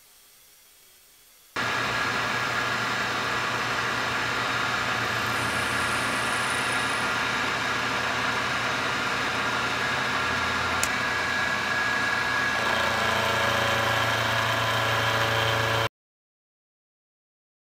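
Milling machine running, its end mill cutting into a metal part with a steady machining whir and hum. It starts suddenly about a second and a half in, shifts in tone later on, and cuts off abruptly near the end.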